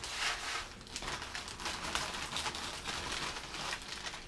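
Nacho Doritos tortilla chips poured from a crinkling foil chip bag into a metal baking pan, a dense rustling and rattling of chips.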